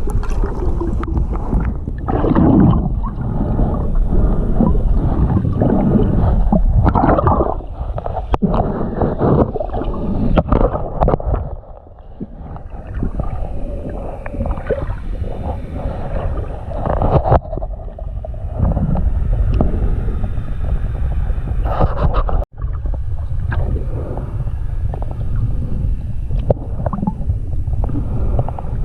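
Muffled water sloshing and gurgling close around the microphone, with bubbly swells and knocks, typical of a camera being moved underwater while snorkeling.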